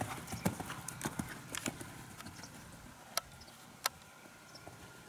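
Hoofbeats of a horse cantering on arena sand, loudest at the start and fading as it moves away. Two sharp clicks stand out later on.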